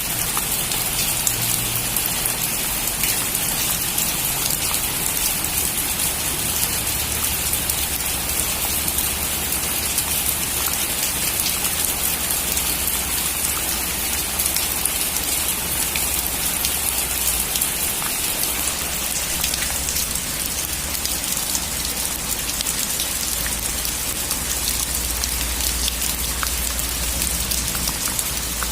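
Heavy rain falling steadily on a metal roof: a constant hiss full of fine drop ticks, with a steady low rumble underneath.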